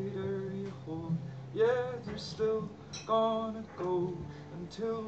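Folk song performed live and unplugged: male voices singing over acoustic guitar, with a low held note underneath that stops about two seconds in.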